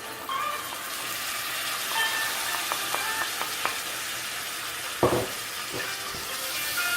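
Food sizzling and frying in a hot pan while being stirred, a steady hiss, with a utensil knocking twice against the pan about five seconds in.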